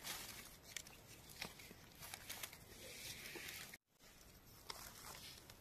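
Faint, scattered rustling and small clicks of dry leaf litter on the forest floor, with the sound cutting out briefly near the middle.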